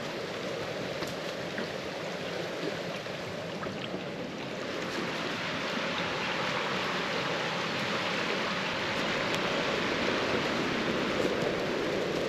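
Steady rushing of flowing water from a stream running high, growing a little louder about four seconds in.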